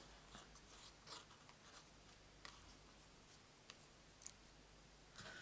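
Faint rustling and a few light taps of small die-cut cardstock pieces being picked up and set down.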